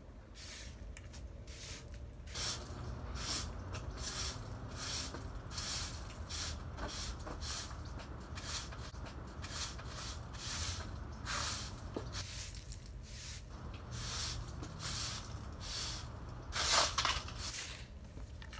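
Broom sweeping a hard patio floor: brisk bristle scrapes about two a second, with a short pause about two-thirds of the way through.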